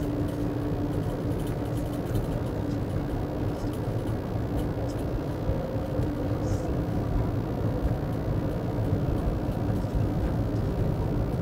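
Steady road and engine noise heard inside a vehicle's cabin while driving, a low rumble with a faint steady hum.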